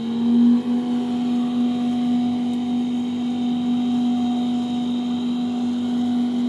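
Solar-powered electric borewell pump motor running with a steady hum, its pitch rising briefly as it comes up to speed at the start and then holding steady.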